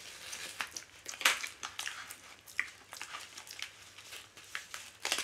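Plastic postal bag being handled and opened by hand, crinkling and rustling in irregular crackles, the sharpest about a second in.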